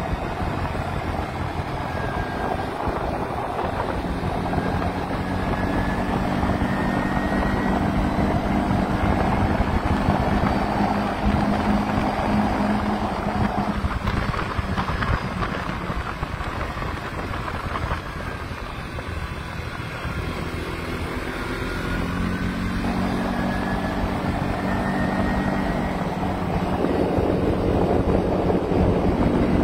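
ATV engine running under way, with wind buffeting the microphone. The engine eases off in the middle and pulls harder again near the end.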